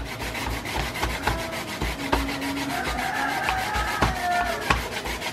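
Albacore flesh being crushed and rubbed with a stone on a plastic cutting board to shred it fine, a steady rhythmic scraping of about four strokes a second.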